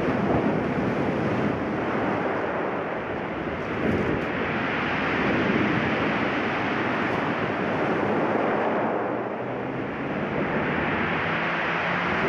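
Sea surf washing onto the beach at night, a steady rushing noise that swells and eases over a few seconds.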